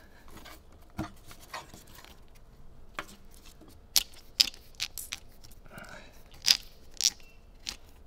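Handling noise of a split-loom-covered cable being worked through a rubber grommet in a metal switch-panel bracket: scattered sharp clicks and knocks of the corrugated plastic loom and bracket, with a brief rustle. There are about eight clicks, the loudest in the middle and toward the end.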